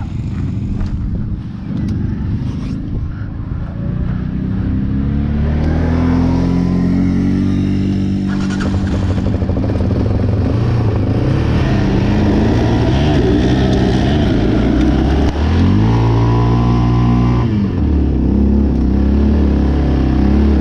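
Quad (ATV) engine running under throttle off-road, its pitch climbing in steps as it shifts up through the gears. It drops back briefly about three-quarters of the way through, then picks up again.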